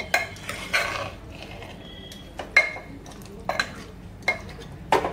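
Metal ladle stirring chunks of bottle gourd and mutton in a pressure cooker pot, clinking and scraping against the pot's sides and bottom. There are several separate knocks at uneven intervals.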